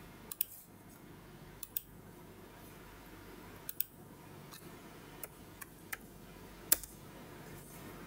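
Sharp clicks of a computer mouse, about a dozen spread out, several in quick pairs like double-clicks, one louder click near the end, over a faint steady room hum.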